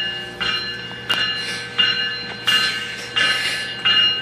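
Diesel locomotive bell ringing in a steady rhythm, about six strikes roughly 0.7 s apart, each leaving a fading ring, as the commuter train pulls out of the station. Train noise runs underneath.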